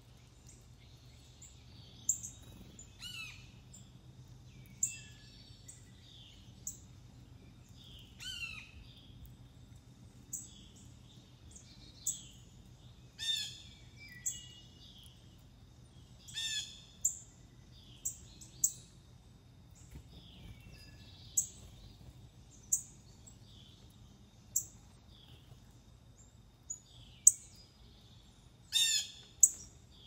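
Wild songbirds calling in short, sharp chirps, one every second or two, a few of them quick downward-sliding notes.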